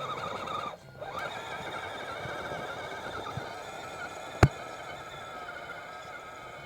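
Electric drive motor and gearbox of an RC scale 6x6 truck whining, its pitch wavering with the throttle; it cuts out briefly about a second in, then runs on. A single sharp click or knock about four and a half seconds in.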